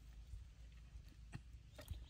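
Near silence: a faint low background hum, with two soft ticks in the second half.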